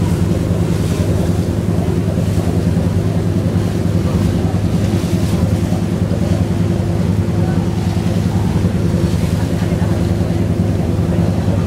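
Boat engine running steadily, with wind noise on the microphone.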